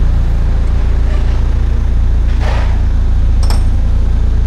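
Car engine idling steadily, a low even drone. A short hiss comes about halfway through, and a sharp metallic click follows a second later.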